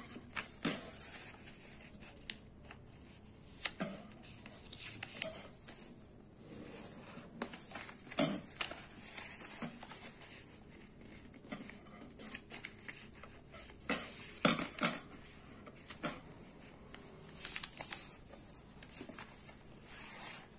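A sheet of paper being folded and creased by hand on a tabletop: scattered rustles, scrapes and light taps as the paper is turned and pressed flat along its folds.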